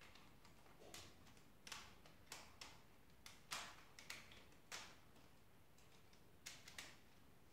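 Faint, irregular clicks and taps of plastic LEGO Technic parts as hands handle and adjust a model helicopter's rotor head and body. About a dozen clicks come in a cluster from about one to five seconds in, with a few more near the end.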